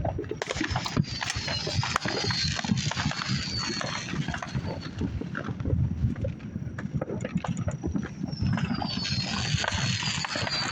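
Neighbourhood fireworks going off on all sides: a dense, irregular run of pops, bangs and crackles over a low rumble, with two long falling whistles, one starting about two seconds in and one near the end.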